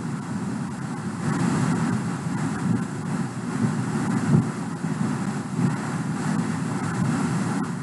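Steady rumbling background noise, without speech, pitch or rhythm.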